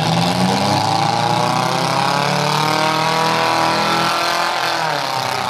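Demolition derby car engines running and revving, the pitch climbing over the first few seconds and dropping back near the end.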